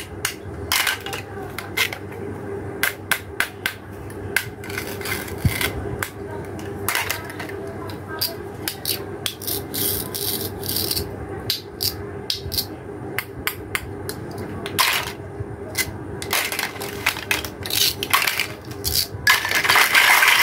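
Plastic toy fruit and vegetable pieces clicking and tapping as hands handle them and press the halves together. Near the end the pieces make a longer rustling clatter as the plastic basket holding them is moved.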